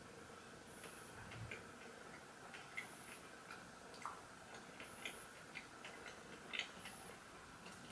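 Faint chewing: soft, irregular mouth clicks and smacks as a sticky dried fruit and fig energy bar is chewed, over a low steady room hum.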